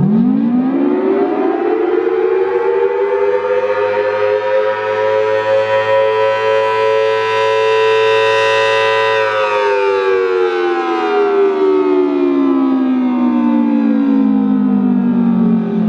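FS&S Thunderbolt 1000T 4/5-port siren winding up to full pitch over the first few seconds, holding a loud two-tone chord, then winding down from about nine seconds in: one rise-and-fall cycle of the attack signal.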